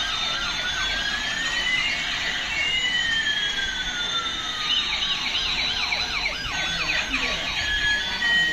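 Electronic toy police-car siren sound effect: two slow wailing tones sweep up and down and cross each other, joined about halfway through by a fast, rapidly repeating warble.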